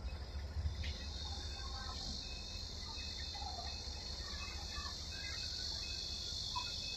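Steady high-pitched insect drone that comes in about a second in and holds, over a low rumble.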